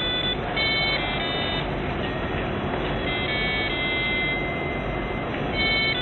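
Tinny electronic melody of plain beeping tones stepping from note to note, played by the Arduino-driven sound output of a homemade coaster, over a steady background hiss.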